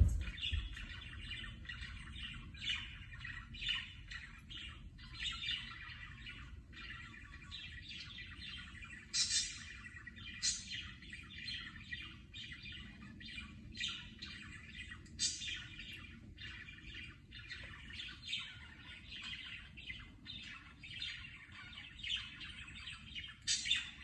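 Budgerigar chattering: a continuous run of short chirps and warbles, with a few louder, sharper chirps scattered through.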